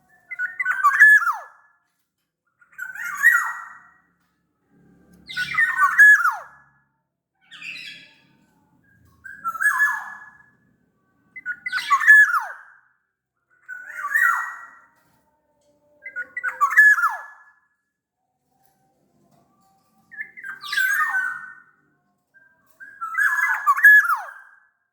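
Black-naped oriole (kepodang) calling: about ten harsh calls, roughly every two seconds, each about a second long and ending in a quick downward slide.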